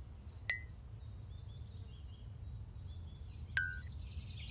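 Faint background ambience: a steady low rumble, two short high blips about three seconds apart, and faint high twittering.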